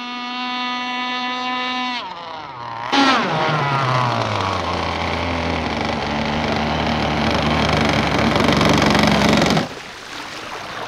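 Gas-powered RC race boat's two-stroke engine running at a steady high pitch, then easing off about two seconds in. From about three seconds in it is louder and closer, its pitch sweeping down to a low, rough running note on little throttle. The sound cuts off suddenly near the end.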